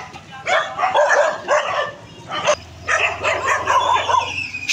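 A group of street dogs barking, several dogs overlapping in quick, repeated barks.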